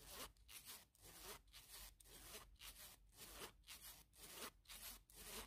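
A cosmetic bag's zip pulled back and forth repeatedly, a faint run of short rasping strokes about two a second. The zip is being tested for snagging, and it runs smoothly without catching.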